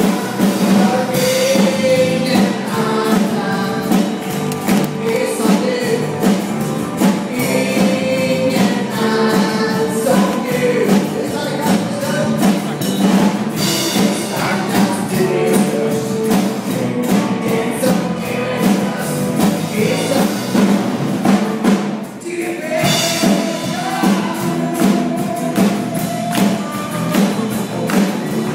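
Live band playing a Swedish worship song: a woman sings lead over acoustic guitar, electric bass and drums. The music drops out briefly about three-quarters of the way through, then comes back in.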